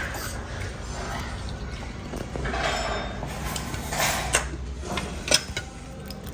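Stainless-steel tableware clinking: a steel finger bowl on its steel saucer knocked and rattled as fingers are rinsed in its water, with a few sharp clinks in the second half.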